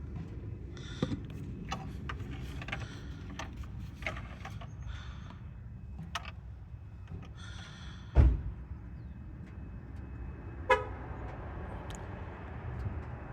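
Car running with a steady low rumble, scattered light knocks and clunks, and two heavy thumps, one about eight seconds in and one near eleven. A few short horn-like toots sound now and then.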